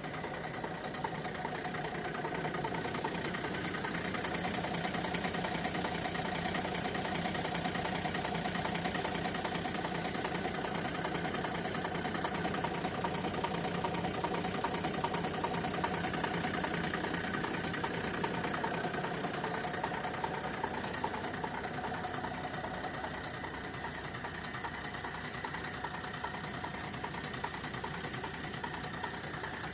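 Renault Scenic II diesel engine idling steadily with a knock in its running.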